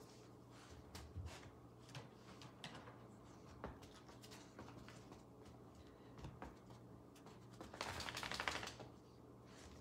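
A small dog moving about on carpet, with scattered light clicks and taps, then about eight seconds in a burst of rapid scratchy clicking lasting about a second as the dog scrabbles on the rug.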